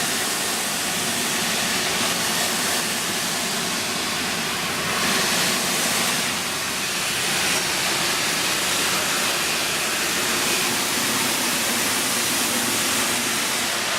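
Peppercorn A1 Pacific steam locomotive 60163 Tornado letting off steam while standing: a loud, steady hiss that cuts off suddenly at the end.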